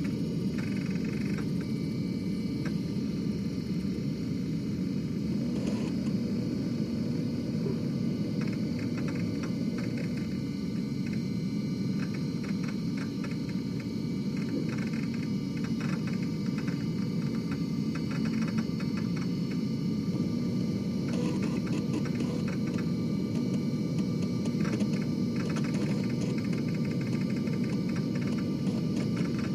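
Floppy disk drive running: a steady whirr from the drive with irregular clusters of quick clicks and ticks.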